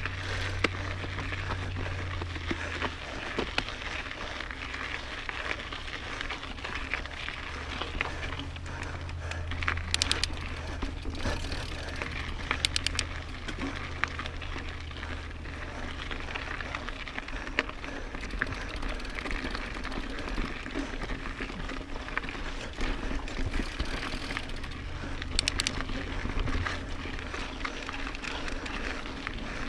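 Mountain bike riding over a rocky dirt trail: a steady rush of tyre noise and wind with a low rumble that comes and goes, and a few brief runs of rapid clicking.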